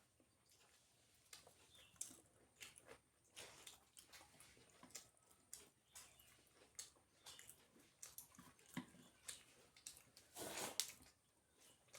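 Faint close-up eating sounds: irregular chewing and lip smacks from someone eating roti and paratha by hand, with a louder smack about ten and a half seconds in.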